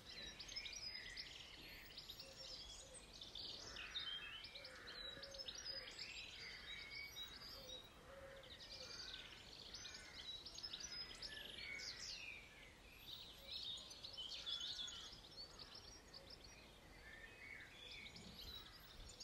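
Faint birdsong: several birds chirping and trilling in short phrases throughout, over a steady low background hiss.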